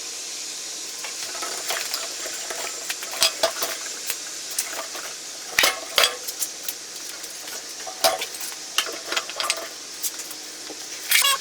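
Scattered metallic clinks and clatters, a few of them sharper and louder, over a steady high hiss.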